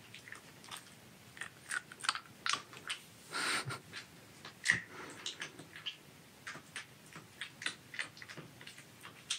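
Silver fox moving about and eating a treat: irregular sharp clicks of its claws on a wooden floor mixed with chewing, with one brief scuffle about three and a half seconds in.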